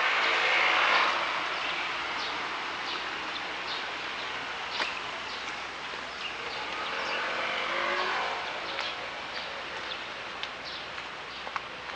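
Small motor scooter engine pulling away up the wet lane, fading about a second in. A second vehicle's engine swells and fades around seven to eight seconds in, with scattered short bird chirps throughout.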